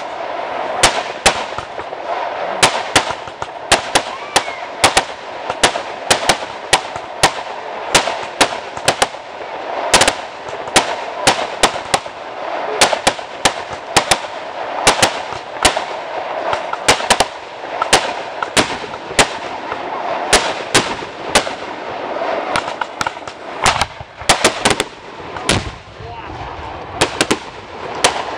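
Consumer aerial fireworks firing in rapid succession: an irregular string of sharp bangs, several a second, as shots launch and burst overhead, over a continuous noisy background.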